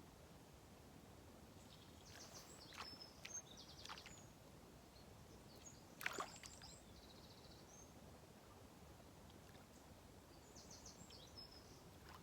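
Quiet riverbank ambience with a few brief clusters of faint, high bird chirps and a single sharp knock about six seconds in.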